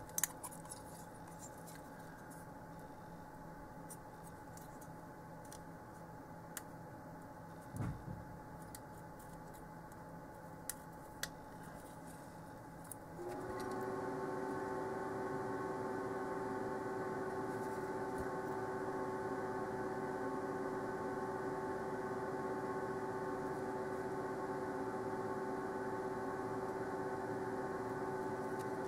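A few faint clicks of small parts being handled, then about halfway through a fume extractor fan switches on and keeps running with a steady hum.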